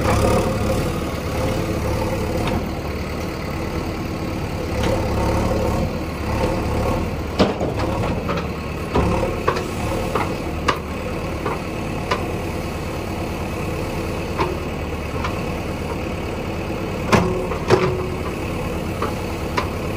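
Heavy diesel engine running steadily at low revs, with scattered sharp knocks and clanks, the loudest two close together near the end.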